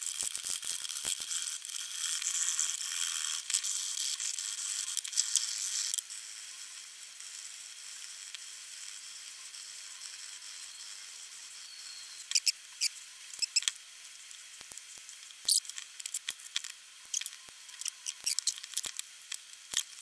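Steady scraping of a blade along the edge of a cured carbon fibre part in its plastic mould, stopping suddenly about six seconds in. After that it is quieter, with scattered sharp clicks and taps as tools pry at the part to free it.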